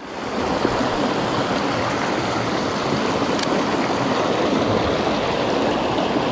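Creek water rushing steadily over rocks and riffles, with a single faint click about three and a half seconds in.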